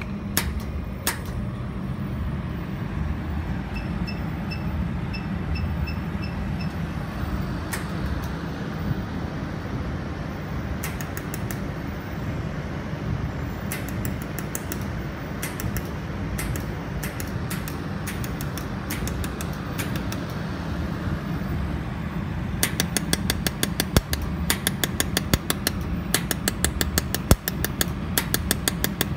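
Pulsed jewelry laser welding machine firing on a thin metal strip: sharp snapping clicks, one per laser pulse, scattered through the middle and then coming in a rapid run of several a second near the end, over the machine's steady cooling hum. A string of about seven short electronic beeps sounds about four seconds in.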